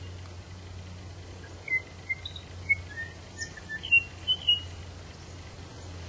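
An unidentified wild bird whistling a quick run of about ten short, clear notes, some rising and some falling in pitch, from a little under two seconds in to about four and a half seconds in, over a steady low hum.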